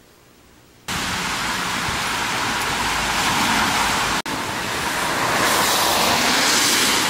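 Steady rushing noise of rain outdoors with a low rumble underneath. It starts suddenly about a second in, breaks off for an instant about four seconds in, and resumes.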